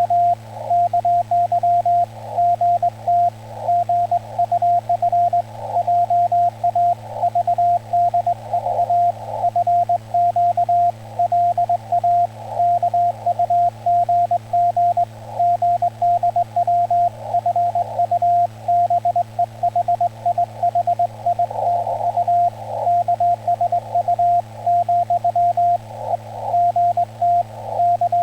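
Morse code (CW) in Korean Hangul code: a single steady tone keyed on and off in rapid dots and dashes through a ham radio, with faint band noise around the signal and a steady low hum underneath.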